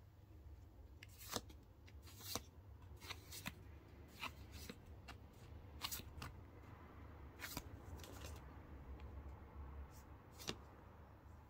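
Pokémon trading cards being flicked through by hand, each card slid off the front of a small stack and tucked behind: faint, irregular snaps and clicks of card edges, about one every half second to second, over a low steady hum.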